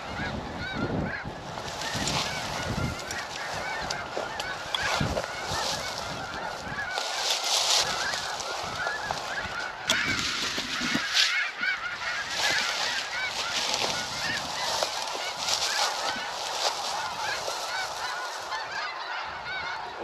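A large flock of snow geese calling continuously, a dense chorus of many overlapping honks.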